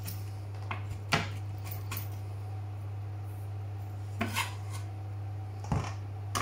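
Chef's knife knocking a handful of times on a bamboo chopping board, scattered single taps rather than a chopping run, as chopped fresh sage is gathered and scooped onto the blade. A steady low hum runs underneath.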